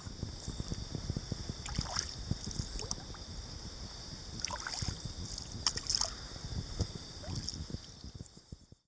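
River ambience: water splashing and lapping a few times, wind buffeting the microphone, and a steady high insect chorus, fading out near the end.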